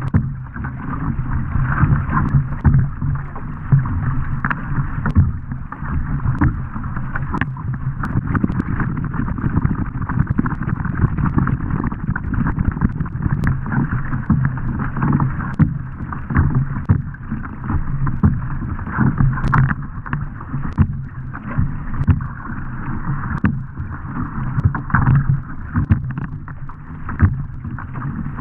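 Racing surfski being paddled hard: water rushing and splashing at the bow, with the splashes of repeated paddle strokes and wind buffeting the bow-mounted microphone.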